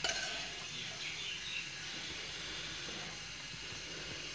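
Steady background hiss with faint, short high chirps in the first second or so, and a single soft knock at the very start.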